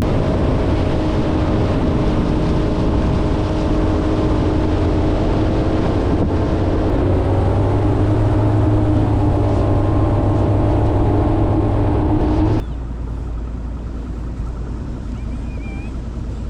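Boat motor running steadily at speed, then cutting off abruptly about twelve seconds in, leaving a lower steady background noise with a few faint high chirps near the end.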